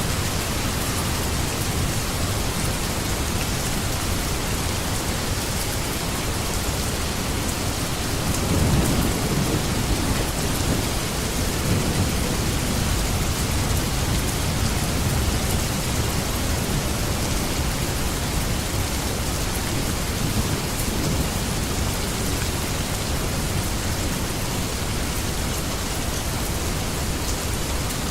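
Steady rain falling as an even hiss, with a low rumble of thunder swelling about eight seconds in and fading over several seconds.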